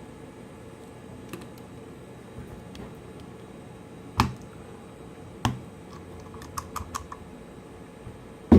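Scattered sharp clicks and knocks from a smartphone and small repair tools being handled on a work surface. Two knocks come about four and five and a half seconds in, a quick run of light clicks follows around six and a half to seven seconds, and the loudest knock comes near the end.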